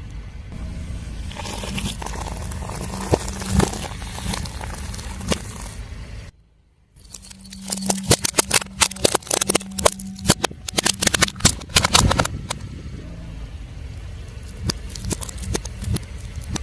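A car's tyre rolling over and crushing crunchy objects: a run of crackles and sharp snaps, densest in the middle, over the low hum of the car's engine. The sound cuts out briefly about six seconds in.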